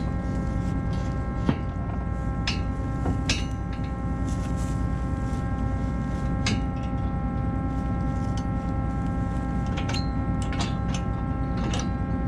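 A farm machine engine running steadily with a constant whine over it. Sharp metal clanks come at irregular moments as the steel header-trailer parts are slid and knocked into place.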